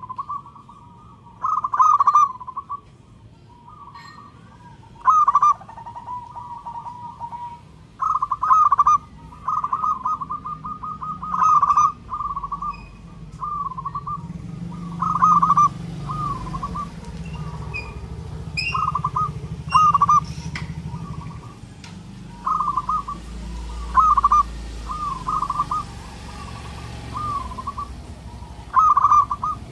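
Zebra dove (perkutut) singing: repeated phrases of short, rapid rippling coos, a loud phrase every few seconds with softer coos in between.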